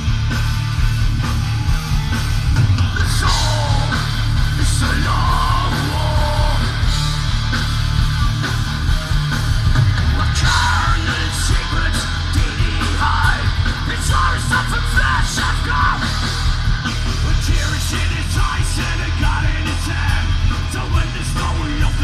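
Thrash metal band playing live at full volume: distorted electric guitars, bass and pounding drums, with shouted vocals coming in at times. The low end is heavy and saturated, as picked up from the crowd.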